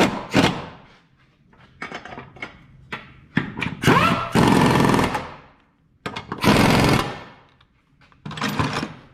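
Impact wrench hammering in four short bursts as the front subframe bolts are run in and tightened.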